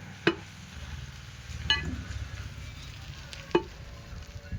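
A butcher's blade chops goat meat with three sharp strikes over a low steady background noise. The second strike has a short metallic ring.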